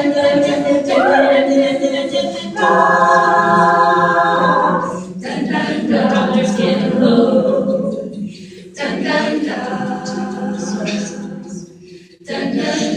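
A cappella vocal group singing in close harmony, holding sustained chords, with short breaks about two-thirds of the way through and near the end.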